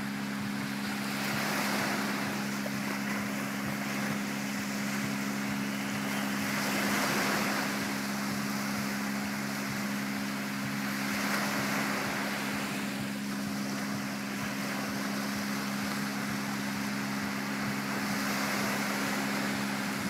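Small Mediterranean waves breaking and washing up a sandy shore, the wash swelling and fading every few seconds. A steady low hum runs underneath.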